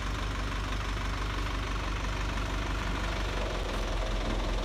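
Crane truck's engine running steadily while it hoists and lowers a heavy tree onto a truck, a constant low hum with no change in speed.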